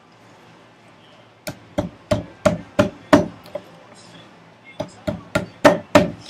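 Sharp knocks on wood at the workbench, in two runs of about six or seven blows, roughly three a second, with a short pause between them.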